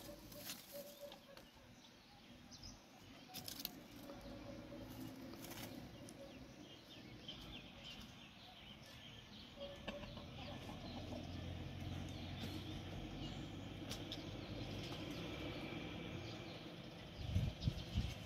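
Domestic hens and a rooster, softly clucking and murmuring in short low calls, with a few low thumps near the end.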